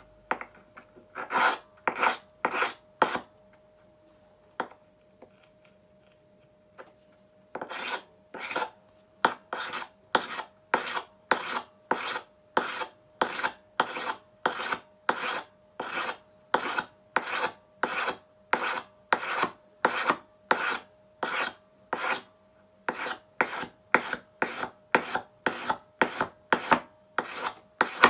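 The leveler's blade being sharpened by hand, steel scraping in repeated back-and-forth strokes. After a pause of a few seconds the strokes run steadily at about one and a half a second. A faint steady hum sits underneath.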